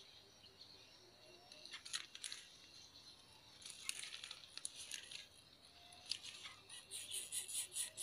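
Faint, crisp rustling and crackling of dry leaves and stems at the nest, in scattered bursts at first, then a quicker run of rustles about two or three a second near the end as an adult greater coucal pushes in to the chicks.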